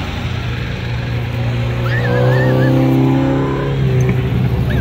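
Cars driving slowly past one after another with a steady low engine rumble. One engine swells louder as it passes, about two to three seconds in.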